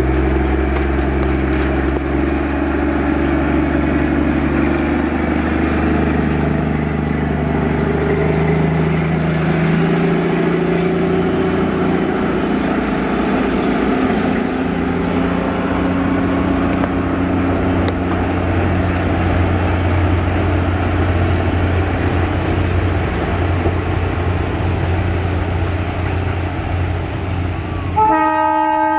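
Darjeeling Himalayan Railway toy train's locomotive running close by as it climbs, its engine note rising about a third of the way in. The horn sounds briefly near the end.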